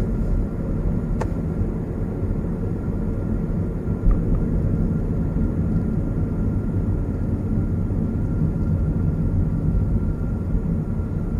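Steady low rumble of a car's engine and tyres, heard inside the moving car's cabin, with a short knock about four seconds in.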